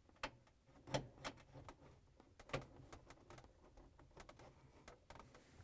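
Scattered light clicks and taps of small metal parts being handled while a ground wire is attached to a refrigerator defrost heater, the two sharpest about a second and two and a half seconds in.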